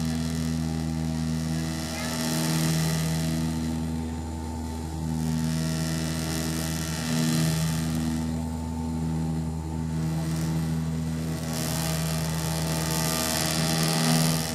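The turboprop engines and propellers of a Bombardier Dash 8-100, heard inside the cabin, give a steady low drone of propeller tones on the ground. A rushing hiss swells and fades several times over it.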